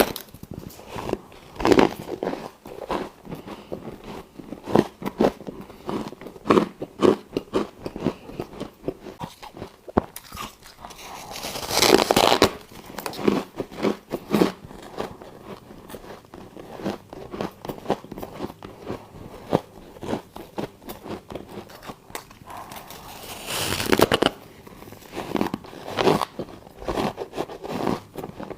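Close-miked biting and chewing of frosty freezer ice chunks. Three big crunching bites come about twelve seconds apart, each followed by steady crunching chews.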